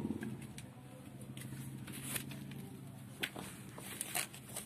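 A motorcycle engine fading away in the first moments, leaving a faint low hum, then scattered light rustles and clicks, most of them in the second half.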